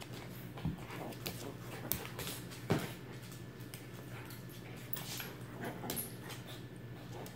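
A Lhasa Apso and a Shih Tzu play-wrestling on a wooden floor: scuffling, with scattered clicks and a few thumps, the loudest about three seconds in.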